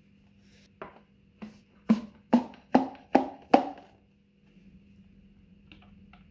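Wooden rod knocking inside a cardboard Pringles can to seat a glued block: a run of about seven knocks, the last five loudest and coming about two to three a second, followed by a couple of light clicks near the end.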